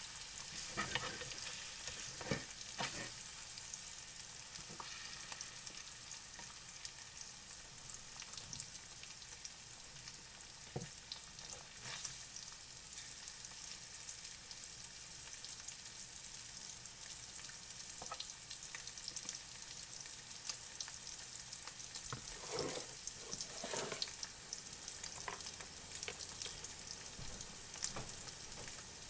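Eggs sizzling steadily in hot bacon grease in an electric frying pan. Now and then a spatula scrapes and taps against the aluminium pan as the eggs are moved, with one sharp click near the end.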